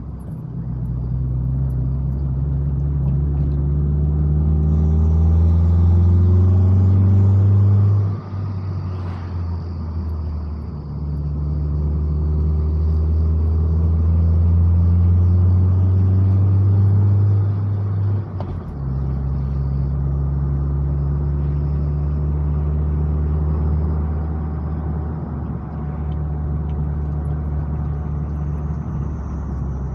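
Car engine pulling uphill, its pitch and loudness rising as it accelerates, then dropping off suddenly about eight seconds in and again about eighteen seconds in, as on a gear change or easing off the throttle. It runs more steadily and quietly after that.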